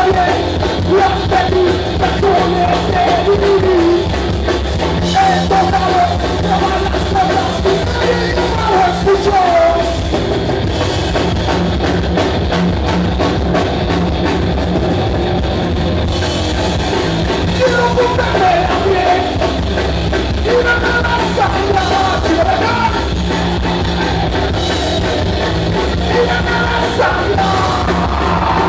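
Live rock band playing loud through a PA, heard from the audience: a singer's voice over drum kit, bass and electric guitars.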